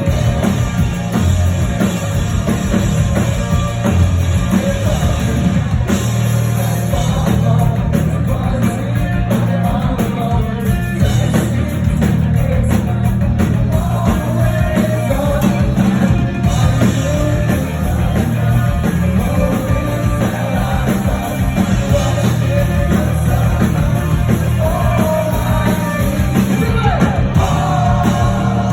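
Rock music with singing, drums and guitar, at a steady level.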